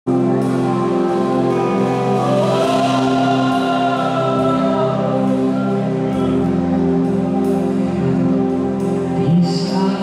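A worship band playing live, with held keyboard and guitar chords and a voice singing a slow line over them.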